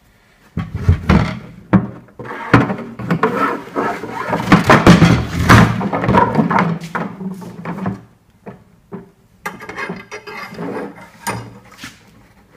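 Red plastic marine fuel tank being handled and tipped onto its end on a workbench: a run of loud knocks and thumps, then lighter clicks and scraping as a long screwdriver is worked in its fitting hole.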